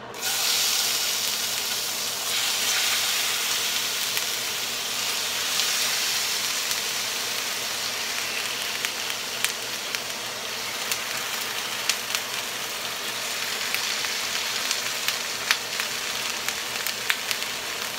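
Diced raw chicken sizzling in hot oil in a frying pan: a steady hiss that starts suddenly as the first pieces hit the pan, with scattered pops and crackles as more pieces are dropped in.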